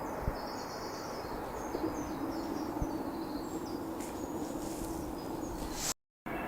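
A small songbird singing runs of short, high notes over a steady low hum that sets in about two seconds in. The sound cuts out completely for a moment near the end.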